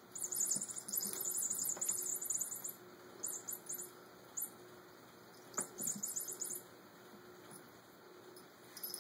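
Rapid high-pitched jingling in bursts from a kitten batting and biting a hanging toy mouse. The longest burst is in the first few seconds, with shorter ones around the middle and near the end, and a few soft knocks against the cat tree.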